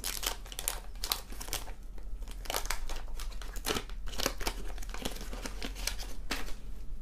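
Paper wax-pack wrapper of a 1991 Fleer basketball card pack being torn open and crinkled by hand as the cards are pulled out: a run of irregular crackling rustles.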